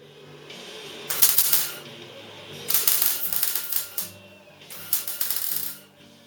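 Welder crackling in three bursts of about a second each, laying weld on the steel of a car's inner wing.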